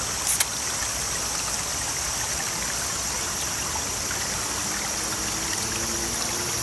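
A drink can's pull tab cracked open with a short sharp pop and hiss just after the start. Under it runs the steady rush of a shallow, clear stream.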